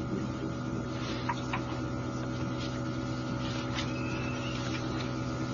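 Steady hum of an electric train's onboard equipment, heard from inside the passenger car, with a few faint clicks and a thin high tone near the end.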